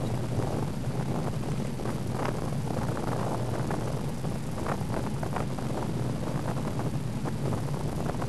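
Wind rushing over the microphone of a bicycle-mounted camera while riding, with a steady rumble and irregular small knocks and rattles as it rolls over the road surface.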